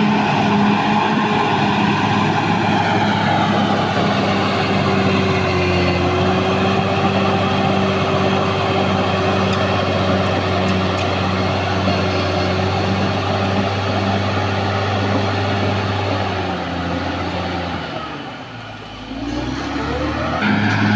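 Caterpillar D6R XL bulldozer's diesel engine running steadily under load, with a steady whine over the engine note; near the end the engine drops off for a moment, then revs back up.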